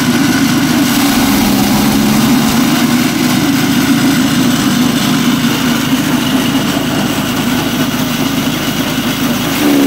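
A chaff cutter running steadily under power, with a loud, even engine-like hum; its pitch climbs right at the end.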